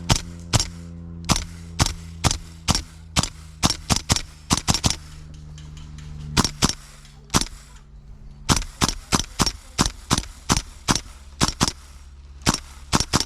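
Gas blowback airsoft rifle fired in rapid single shots, a few sharp cracks a second, with a short pause a little past the middle.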